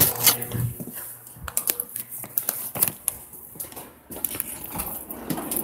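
Crinkly plastic packaging being handled, giving an irregular run of small crackles and clicks, with bumps from the phone being moved about.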